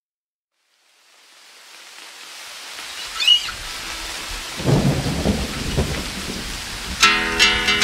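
Rain and thunder fading in from silence: a steady hiss of rain, a short sharp sound about three seconds in, and low rumbles of thunder around five to six seconds in. Near the end a plucked guitar starts playing over it.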